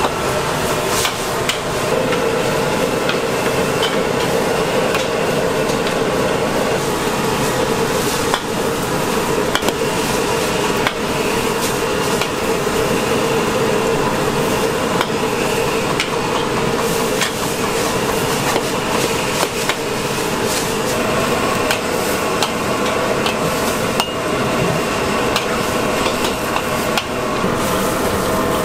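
Metal spatula clanking and scraping against a steel wok as pad thai noodles are stir-fried, many sharp irregular clacks over steady sizzling.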